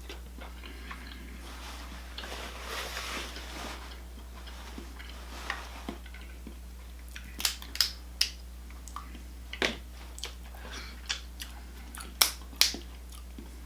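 Close-up eating sounds: a soft rustle, then a series of sharp cracks and snaps, typical of snow crab shells being broken open, with biting and chewing. A steady low electrical hum sits under it.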